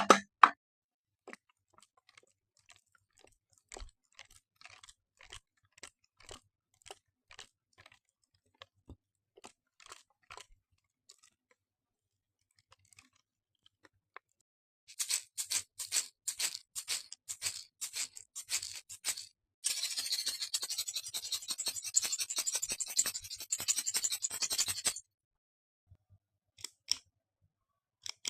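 A household object scraped in quick strokes: faint scattered clicks at first, then a run of short high scratchy strokes about five a second, turning about twenty seconds in into a dense continuous rasping that cuts off suddenly.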